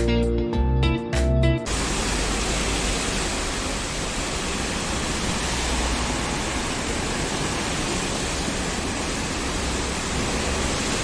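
Intro music with plucked notes for about the first second and a half, then a sudden cut to the steady, even hiss of a heavy rainstorm downpour.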